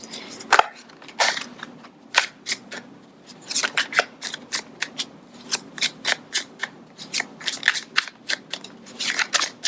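A deck of tarot cards being shuffled by hand: a string of sharp, irregular card snaps, a few each second.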